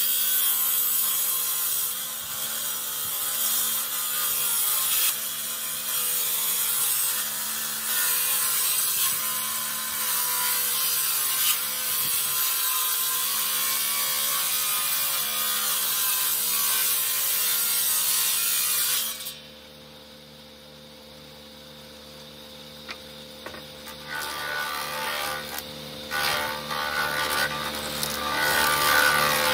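Stationary woodworking machine cutting a wooden board, loud cutting noise over the motor's steady hum. About two-thirds of the way through the cutting stops suddenly, leaving only the machine running, and cutting starts again in short passes near the end.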